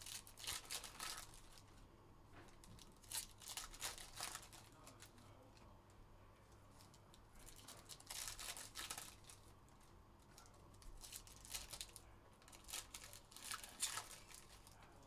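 Foil trading-card pack wrappers being torn open and crinkled by hand. The sound is faint and comes in several short bursts a few seconds apart.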